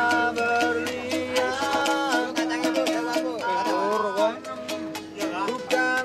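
Bus buskers' music: a small strummed string instrument and singing over a steady, quick shaker-like beat.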